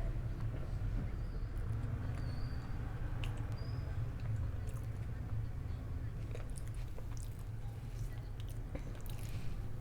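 A person chewing food close to the microphone, with scattered small mouth clicks, over a steady low hum.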